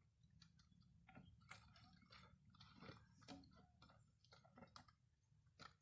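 Faint, irregular clicks and taps of small items being handled, with near silence between them.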